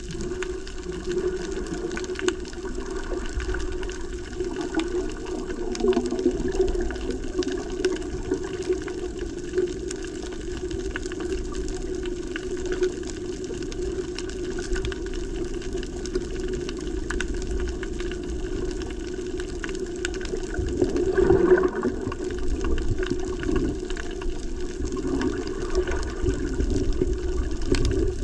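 Underwater sound picked up by a submerged camera: a steady muffled water rush with faint scattered clicks, swelling briefly about three-quarters of the way through.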